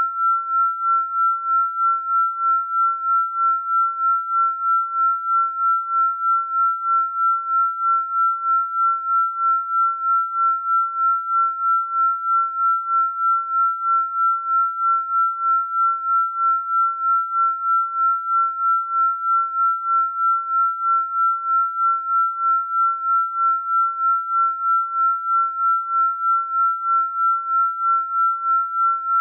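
Electronically generated pure sine tone, one steady high pitch with no other sounds, its loudness swelling and fading evenly about twice a second.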